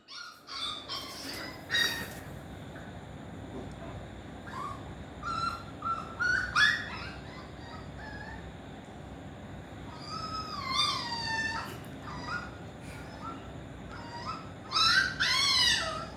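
Pomeranian puppy whining and yelping in high, sliding cries that come in several separate bouts, the longest about ten seconds in and near the end.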